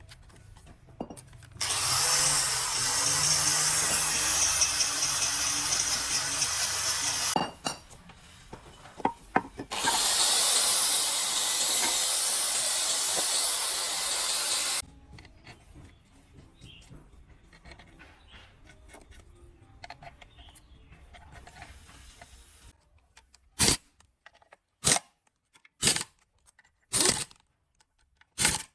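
A power tool running in two loud stretches of about five seconds each, with a short pause between them. Near the end come several short, sharp bursts of noise about once a second.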